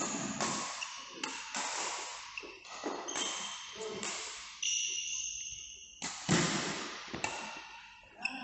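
Badminton play on a court: sharp racket hits on the shuttlecock about once a second, with brief high-pitched shoe squeaks on the court floor.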